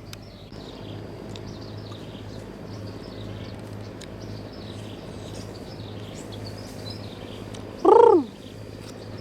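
Outdoor ambience of many small high bird chirps over a steady low hum. About eight seconds in, a single short, loud animal call rises and then falls in pitch.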